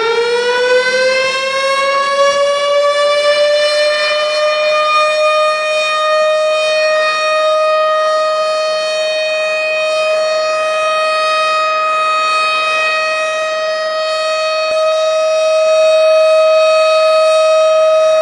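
Ramadan siren of the kind sounded for imsak and for breaking the fast. It finishes winding up, its pitch still rising for the first few seconds, then holds one steady wail, getting a little louder near the end.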